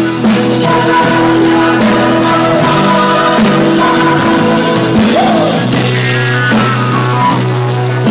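Rock band playing live: guitar and bass notes held over a steady drum beat.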